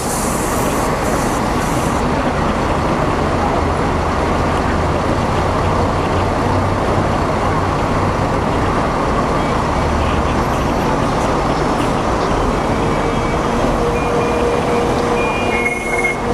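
A vehicle running, a steady loud noise, with a steady hum joining about twelve seconds in.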